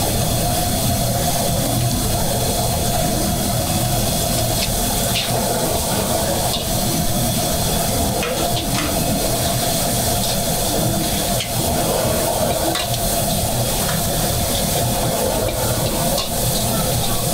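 Fried Hokkien noodles frying: a steady sizzling hiss over a low rumble, with scattered sharp clicks.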